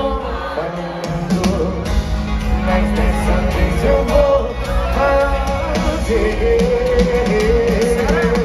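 Live sertanejo band music: singing over guitars and drums, heard from within the concert crowd.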